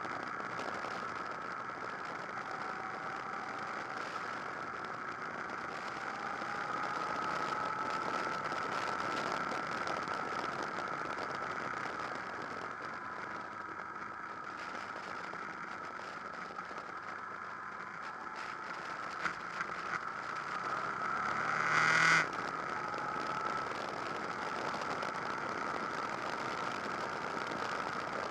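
Honda VFR800 VTEC's V4 engine running under way, mixed with wind noise, heard from an onboard camera; the engine note drifts gently up and down. About three quarters of the way in, the sound swells briefly louder and cuts off sharply.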